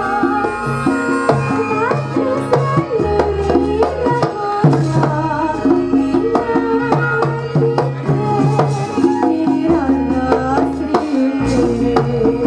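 Javanese gamelan playing an accompaniment, led by kendang hand-drum strokes, with bronze metallophones sounding steady stepped melody notes.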